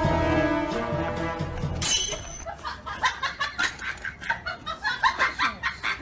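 About two seconds of music that cuts off abruptly, followed by a string of short, rapid cackling bursts of laughter.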